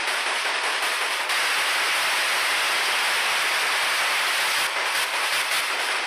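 A loud, steady hiss of noise like static, flickering briefly near the start and again near the end.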